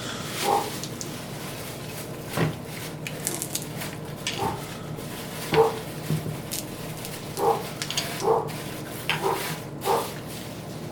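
Puppies barking, short yaps repeated every second or two.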